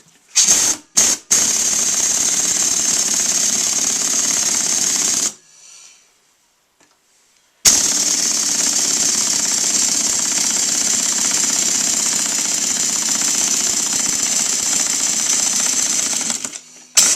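Pneumatic impact wrench driving in the screw of a tire bead breaker, pushing the tire's bead off the rim. A few short blips, then a run of about four seconds, a pause of about two seconds, and a second, longer run of about nine seconds.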